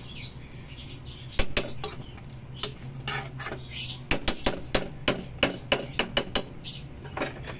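Metal utensil clinking and scraping against a pan while thick ground-meat tomato sauce is stirred: a run of sharp, irregular clicks that grows busier in the second half, over a low steady hum.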